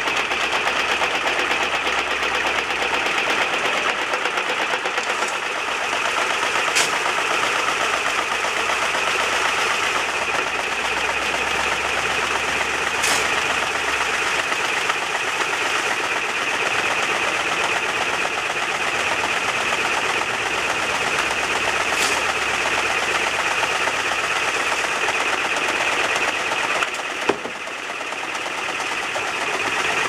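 Corded reciprocating saw running steadily, its blade shaking a screened dirt-sifter box loaded with rock and soil, giving a fast, even rattling buzz. A few sharp clicks stand out, and the running dips briefly near the end.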